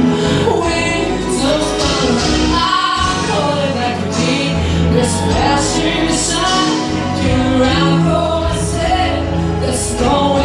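A woman singing a song into a microphone with instrumental backing.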